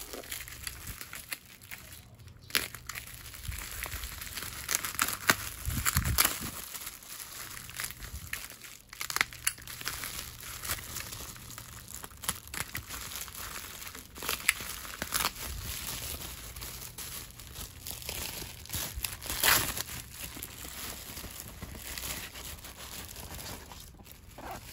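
Plastic bubble wrap being handled and cut open by hand: continuous crinkling with many sharp crackles.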